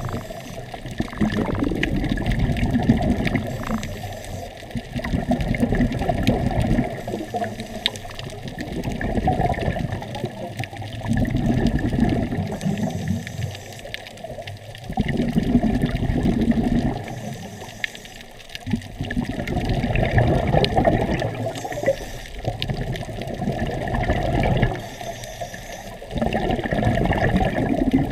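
Scuba regulator exhalations heard underwater: a rush of bubbling comes every three to four seconds, with quieter spells between breaths.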